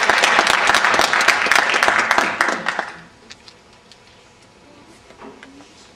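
Audience applauding, the clapping dying away about three seconds in. After that the hall is quiet, with a few faint knocks.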